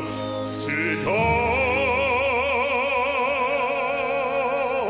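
Operatic baritone singing a Ukrainian song. About a second in he slides up into one long note held with wide vibrato, which ends just before the close.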